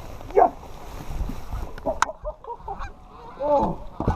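Geese honking repeatedly in short rising-and-falling calls, several overlapping toward the end.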